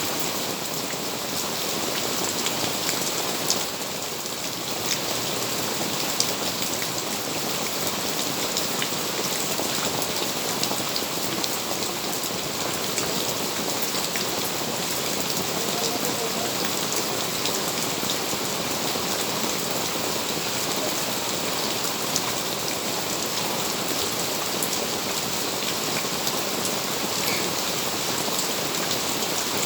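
Steady rain falling: a constant hiss, with the sharp ticks of individual drops striking close by.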